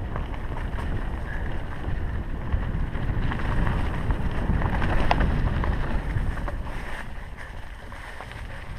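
Mountain bike descending a dirt and leaf-litter forest trail: a steady rumble of tyres over the ground with wind buffeting the camera's microphone, and a few sharp knocks and rattles from the bike. It is loudest through the middle and eases off near the end.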